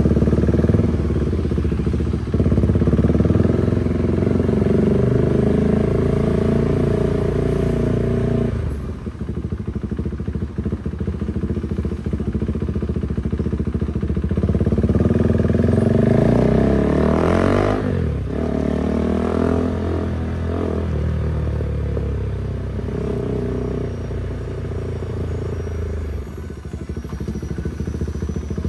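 Husqvarna Svartpilen 401's single-cylinder engine running through slow traffic, its pitch rising and falling with the throttle. The engine drops quieter for several seconds about a third of the way in, then rises in pitch and falls away again a little past the middle.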